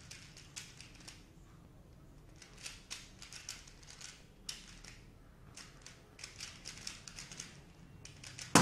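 Dayan ZhanChi 3x3 speed cube being turned fast, its plastic layers making quick clusters of clicks in bursts with short pauses between. A single loud sharp knock comes near the end.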